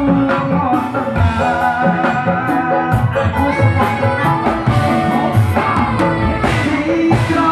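Loud live band music from a drum kit, electric bass and saxophone, with a man singing into a microphone over the band.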